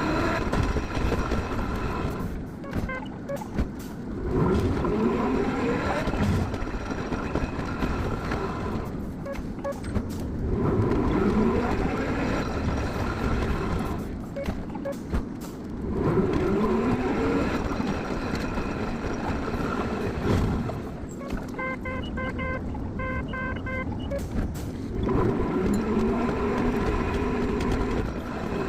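Hankai tramcar running, sped up: the traction motor whine rises again and again as the tram pulls away, with quieter lulls in between. A short run of evenly spaced chime-like tones sounds during one lull near the end.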